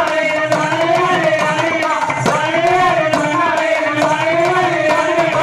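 Men singing a Tamil kummi folk song through microphones, in long held phrases over a steady percussion beat of about two strokes a second.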